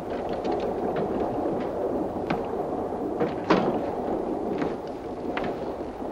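Steady rumble of a passenger train running, heard from inside the carriage, with irregular clicks and knocks through it. One louder knock comes about three and a half seconds in.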